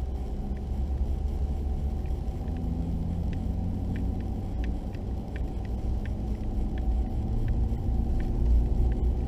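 Steady low road and engine rumble inside a vehicle driving on an unpaved dirt road, with scattered light ticks.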